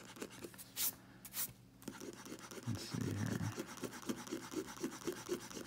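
Mechanical pencil scratching across drawing paper in quick back-and-forth sketching strokes, about five a second, with a couple of brief louder swishes about a second in.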